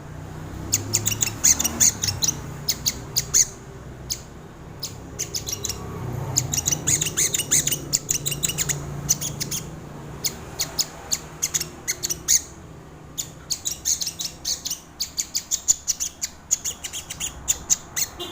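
Crimson sunbird (sogon) singing: rapid, sharp high chips strung into quick bursts and short trills, repeated throughout with brief gaps, over a steady low background rumble.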